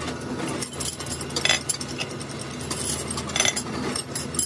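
Metal wrench rods clinking and clattering against each other as they are dropped onto a pile, a few sharp clinks scattered over a steady low machine hum.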